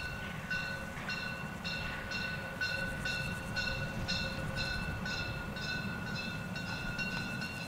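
Narrow-gauge steam locomotive hauling a short train of coaches, running at a distance as it approaches, with a steady rhythmic beat about twice a second over a low rumble.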